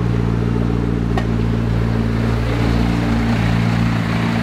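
McLaren P1's twin-turbo V8 idling steadily, with a single short click about a second in.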